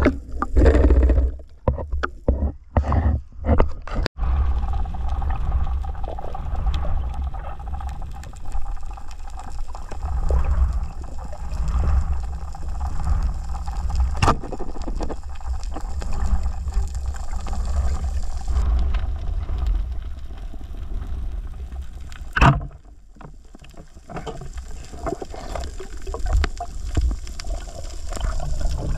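Underwater water noise picked up by a camera mounted on a speargun: a steady low rumble as it moves through the water, with splashing in the first few seconds as it goes under. A sharp knock comes about halfway through and a louder one about three-quarters of the way in.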